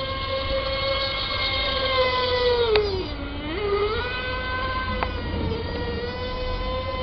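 Model racing boat's small high-revving engine running steadily with a high buzzing pitch. About three seconds in the revs drop sharply and then pick back up. A couple of short sharp clicks are heard.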